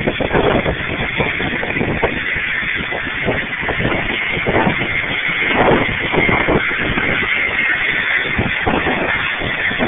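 Jet engines of a rear-engined airliner running at taxi power, a steady whine over a rushing noise, with gusty wind buffeting the microphone.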